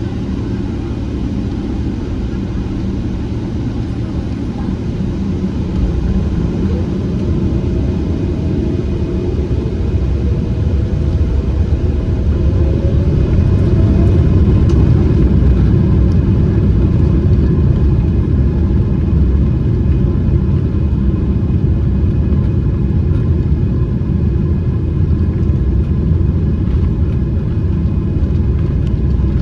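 Cabin noise of a Boeing 777-300ER's GE90 engines: a deep, steady rumble that swells over the first half and then holds loud, with a faint rising whine in the middle.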